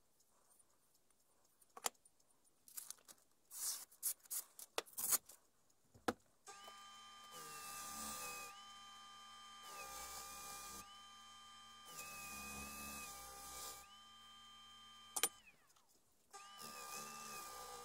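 A few sharp knocks and scrapes, then a small electric disc sander fitted with a felt polishing pad starts and runs with a steady whine. Its pitch dips and recovers several times as the cleaver's edge is worked against the felt. It stops briefly near the end, then starts again.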